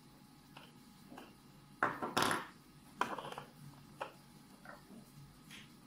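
Plastic clicks and knocks as the Kemei KM-600 grooming kit's trimmer heads are handled, pulled off and set down on the plastic stand and wooden table. The loudest cluster of knocks comes about two seconds in and another about three seconds in, with single light clicks between.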